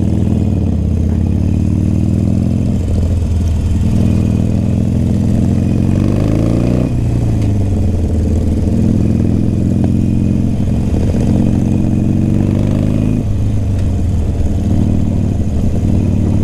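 Motorcycle engine running under way. Its pitch climbs as it accelerates and drops sharply at a gear change about seven seconds in, with further shifts near three and thirteen seconds.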